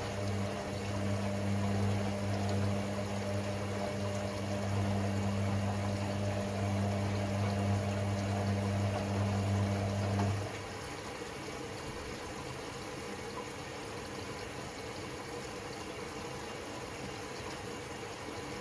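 Hoover Six Sportswear AI130 washing machine mid-cycle: water moving through the machine with a steady electric hum from a pump or water valve. The hum cuts off about ten seconds in, leaving a quieter trickle of water.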